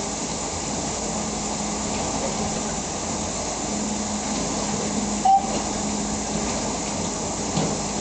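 Dishwasher running its wash cycle: a steady spraying hiss of water with a low motor hum underneath. One brief, louder high-pitched sound cuts in about five seconds in.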